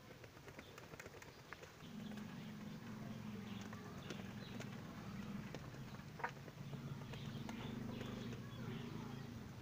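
Domestic pigeons courting and mating: a low rolling coo starts about two seconds in and goes on with short breaks. Over it are light scuffs and clicks of feet and wings, with one sharper click about six seconds in.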